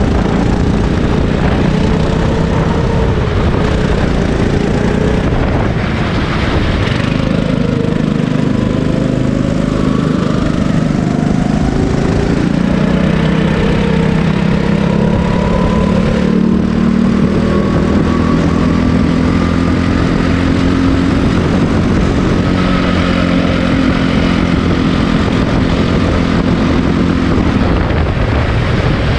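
Rental go-kart engine running hard, heard from on board the kart, its revs climbing along the straights and dropping back into the corners, with a couple of brief lifts off the throttle.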